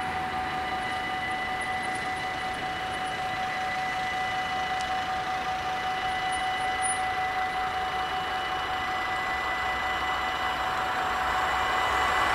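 Dutch level-crossing warning bells ringing without a break as a steady ringing tone, the barriers down. Near the end the rising noise of an approaching train grows louder under the bells.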